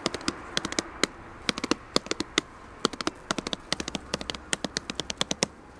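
Hands tapping out a quick, uneven rhythm of sharp strikes, several a second in short clusters.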